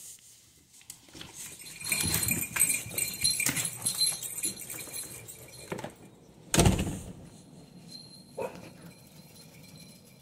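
Dogs scrabbling and moving about excitedly, with claws clicking and collar tags jingling, then one loud knock about six and a half seconds in.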